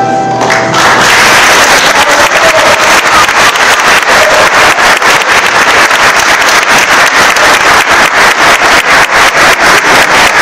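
Audience applauding with many hands clapping, swelling in about a second in as the last violin and piano note dies away.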